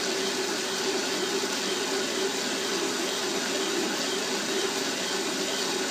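Atlas metal lathe running steadily while its tool bit turns a steel bushing, a constant machine hum with a steady whine held at one pitch.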